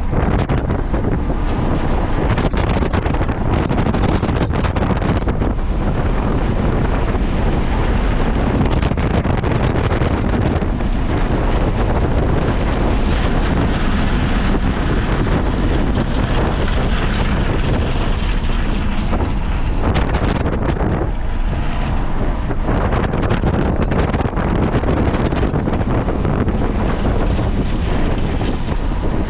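Onboard sound of a car lapping a race track at speed: engine and road noise under heavy wind buffeting on the microphone.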